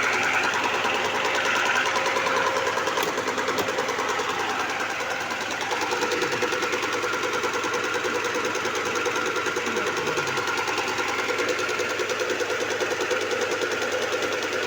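Soybean skin-separating machine for tempeh making running steadily, with a fast, even mechanical pulsing.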